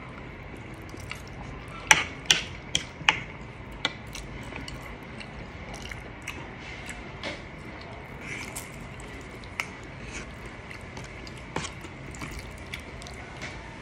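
Close-miked eating sounds of fried chicken wings and spaghetti: chewing, with a quick run of four or five loud sharp clicks about two seconds in and scattered smaller clicks after.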